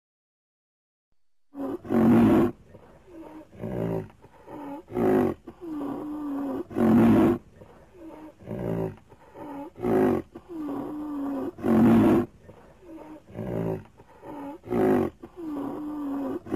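Triceratops creature sound effect: a series of deep, loud roaring calls, one every second or two, with softer wavering calls between them. It starts after about a second and a half of silence.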